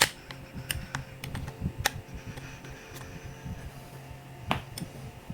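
Scattered sharp clicks and taps of laptop parts being handled and refitted during reassembly, the loudest right at the start and another about four and a half seconds in, over a faint steady low hum.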